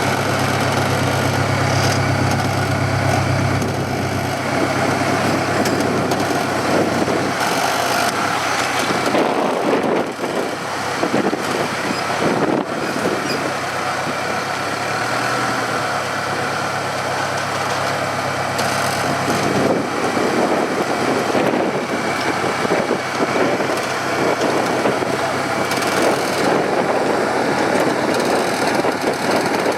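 Rock crawler buggy's engine running and revving in short bursts as it works over rock, with occasional knocks.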